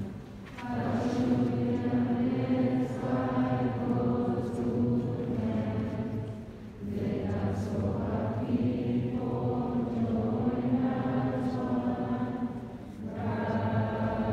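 A choir singing long, held phrases, with short breaks between phrases about six seconds apart.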